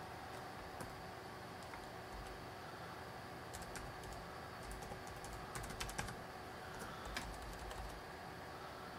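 Typing on a computer keyboard: scattered keystrokes in short irregular clusters, the busiest stretch past the middle, over a faint steady room hum.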